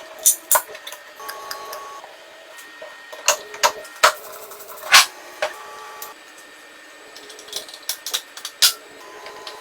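Irregular sharp clicks and knocks, about a dozen, the loudest about five seconds in, with faint steady tones sounding in between.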